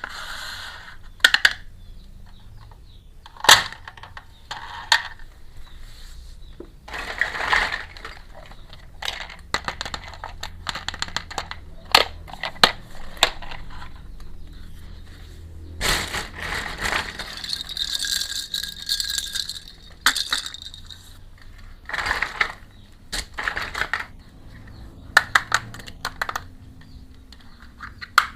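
Small hard plastic toy pieces clicking, tapping and clattering as they are handled and set down, with a few longer stretches of rustling.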